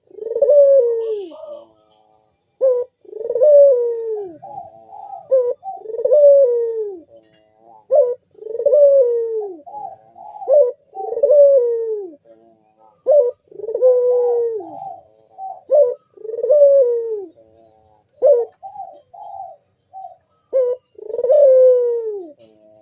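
Puter (Barbary dove) cooing its bekur call over and over. Each phrase is a few short notes followed by a longer coo that falls in pitch, repeated about every two and a half seconds.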